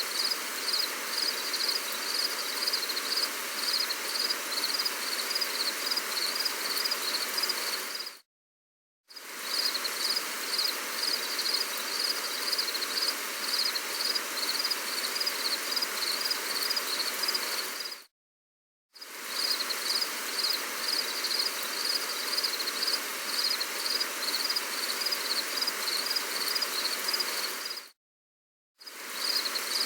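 Gentle rain falling as a steady hiss, with a high pulsing chirp repeating about twice a second over it. The sound cuts out completely for under a second three times, about every ten seconds, where the looped recording restarts.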